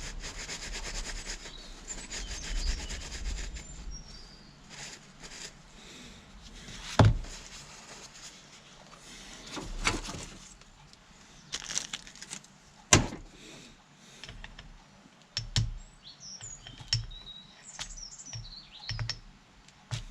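Rubbing as hydraulic pump parts are cleaned, then a series of sharp knocks and clunks as the parts are handled. The loudest knocks come about 7 and 13 seconds in. Birds chirp faintly in the background.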